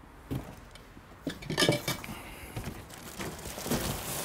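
Metal grill legs clinking against each other as they are handled and set down, a few sharp clinks in the first two seconds. Then the crinkly rustle of a plastic bag as a wrapped grill part is lifted out of a cardboard box.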